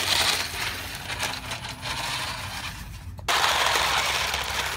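Hobby-grade RC snowmobile running across crusty snow: its track and skis make a crackling, clattering crunch of rapid clicks. About three seconds in it suddenly becomes a steadier, louder churning noise.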